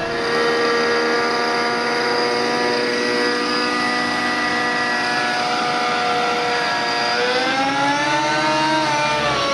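O.S. MAX-55HZ glow engine of a JR Vibe 50 NEX nitro RC helicopter running at high, steady revs in flight. Its pitch wavers up and down over the last couple of seconds as the load changes during aerobatic manoeuvres.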